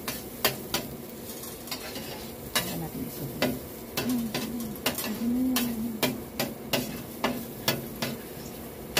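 Metal spoon scraping and clicking against a stainless steel electric skillet as chopped garlic is stirred and sautéed without oil, with a light sizzle underneath. The clicks come irregularly, a few each second.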